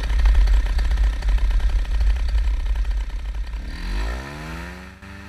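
Low, uneven rumble and rattling of a small ride-on vehicle rolling over rough grass. It fades about four seconds in as a rising tone glides up and holds steady.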